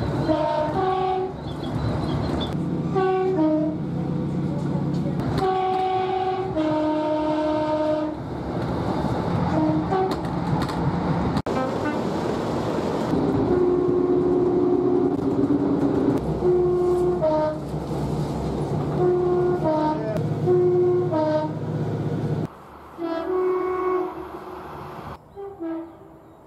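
Train two-tone horns sounding again and again: short high and low notes in alternating pairs and runs, over the steady rumble of the trains. A rushing noise comes in about halfway through, and the rumble drops away a few seconds before the end while a few more horn notes sound.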